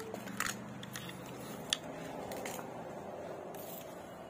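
A few short clicks and knocks from a spinning fishing reel being handled on a hard table, over steady low background noise.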